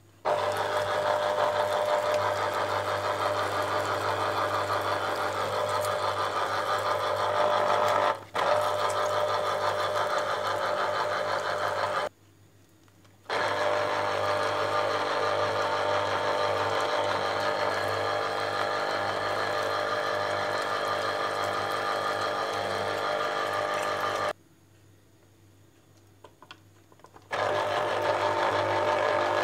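A small electric kitchen appliance motor running with a steady whine in long stretches. It is switched off and restarted three times: a brief break about eight seconds in, about a second off near twelve seconds, and about three seconds off near twenty-five seconds.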